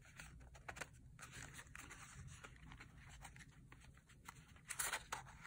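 Faint handling sounds of small wooden stamp blocks in a cardboard box: light clicks and scrapes as the stamps are worked loose, with a louder scrape near the end.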